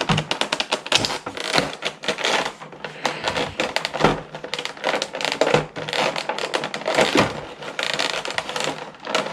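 Plastic toy packaging being worked open by hand: a rapid run of clicks, crinkles and rustles.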